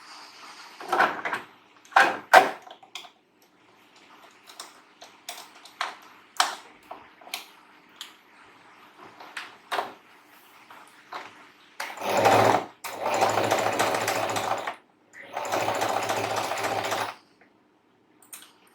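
Singer electric sewing machine running in three short runs of a second or two each, in the second half, after a string of scattered clicks and knocks.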